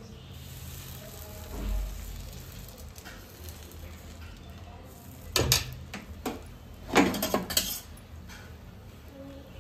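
Dosa batter sizzling faintly on a hot griddle as it is ladled out, over a steady low hum. Two bursts of sharp metal clinks, about five and seven seconds in, from a steel ladle knocking against metal.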